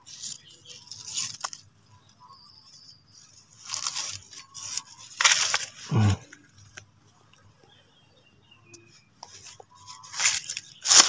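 Footsteps crunching on dry leaf litter and plants brushing past, in a few irregular bursts with quieter gaps between.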